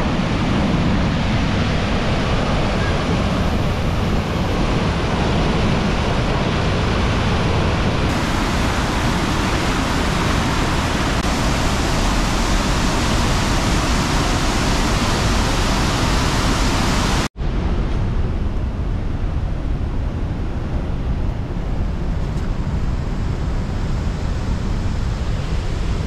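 Spring-runoff floodwater rushing over a reservoir spillway and down sandstone waterfalls: a loud, steady rush. A short dropout comes about two-thirds of the way in, and after it the rush sounds duller.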